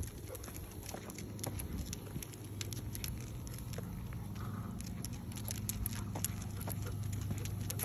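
Light, irregular clicks and taps of a basset hound's claws and a walker's steps on a concrete sidewalk, over a steady low hum.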